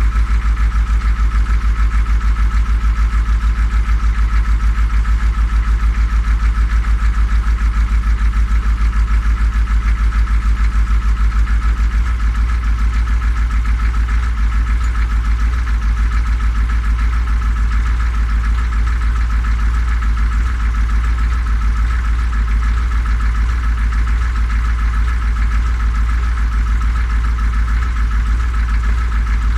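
1989 Chevrolet G20 van's 6.2-litre diesel V8 idling steadily with an even pulsing beat, heard from beneath the van. The engine is running on a newly replaced fuel transfer pump and a freshly bled fuel system after standing for a year. It gets slightly quieter about twelve seconds in.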